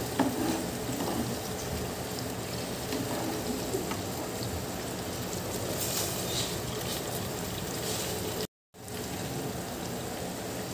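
Onions, tomatoes and green chillies sizzling in hot oil in an aluminium pot, a steady hiss. It drops to silence for a moment about eight and a half seconds in.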